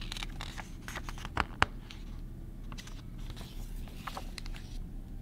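Paper page of a picture book being turned by hand, rustling and scraping, with two sharp taps close together about a second and a half in.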